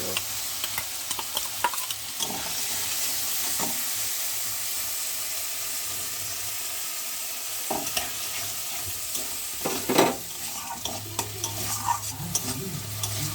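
Washed masoor dal frying in spiced onion masala in a kadai: a steady sizzle, with a spatula scraping and knocking against the pan as the lentils are stirred and fried down (kosha).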